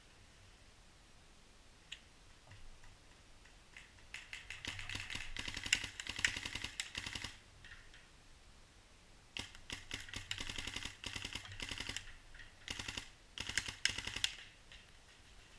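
Paintball markers firing in rapid strings of sharp clicking shots, in two long bursts: one from about four to seven seconds in, the other from about nine and a half seconds until near the end.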